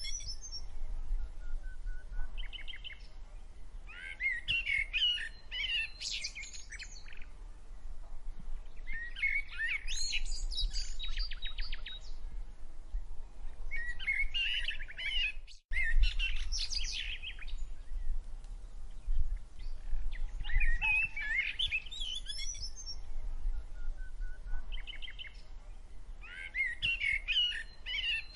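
Songbirds singing in short chirping phrases that come every few seconds, over a steady low rumble. The sound cuts out for a split second about halfway through.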